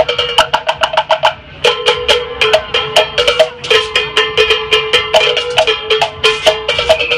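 Live band music: a fast, steady beat of sharp percussive clicks under held chord notes, which drop out briefly about a second and a half in.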